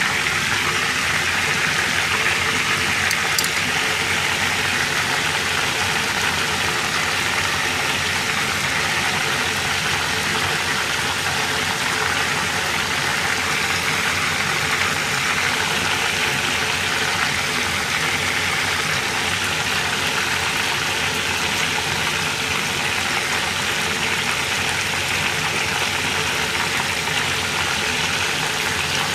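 Hot oil in a deep-frying pan sizzling steadily as battered food fries, with a steady hum underneath. The sizzle is still strong, the sign that the food is not yet done: it is finished once this sound goes quiet.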